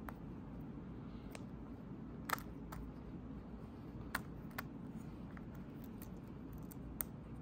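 Small plastic clicks and taps from a Honda key fob's case halves and tiny buttons being handled and pressed together: a handful of sharp, irregular clicks, the loudest a little over two seconds in, over a steady low hum.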